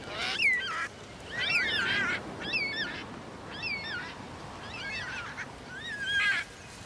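Parrots calling: about six short bursts of harsh squawks with swooping rises and falls in pitch, coming roughly once a second.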